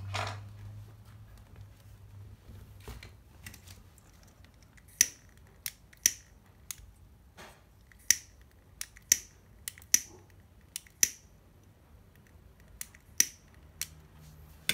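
A hand-held lighter clicked over and over: about a dozen short, sharp, identical clicks, roughly one a second, starting about five seconds in.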